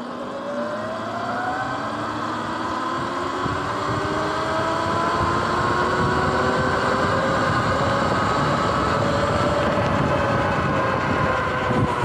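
Sur-Ron X electric dirt bike's motor and drivetrain whining, several tones rising in pitch as the bike pulls away from a stop and gathers speed, then holding steady once it is cruising. Wind rushes over the microphone, growing louder with speed.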